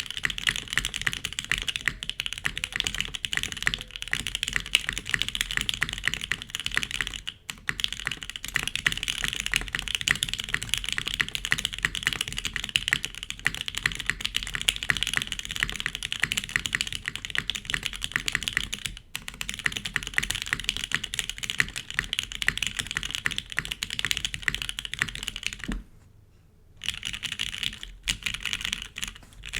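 Fast, continuous typing on a Geonworks F1-88 mechanical keyboard with lubed Gateron Oil King linear switches, a Poron-dampened FR4 plate and GMK keycaps: a dense, clacky patter of keystrokes. It is broken by short pauses about 7 and 19 seconds in and a break of about a second near 26 seconds.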